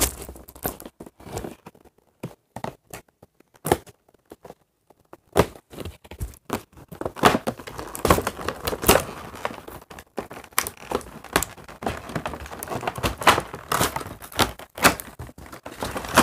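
Plastic and cardboard doll packaging being handled and opened: crinkling, tearing and small knocks. It is nearly quiet for a couple of seconds early on and gets busier from about five seconds in.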